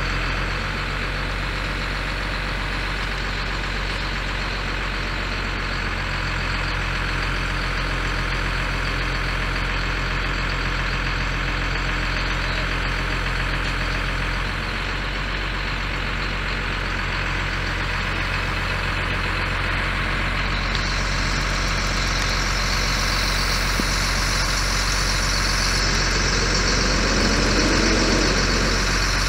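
Ford 6.6 L inline-six diesel engine of a 1989 F800 truck running steadily, with an even hum. Near the end there is a brief extra wavering sound.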